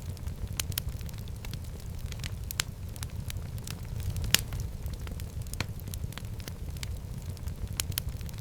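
Wood fire burning in a fireplace: a steady low rumble of the flames with irregular sharp crackles and pops, one louder pop about four seconds in.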